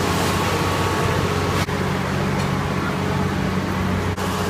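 Steady street noise with a low engine hum and a faint steady whine above it. It is broken twice by a split-second dropout.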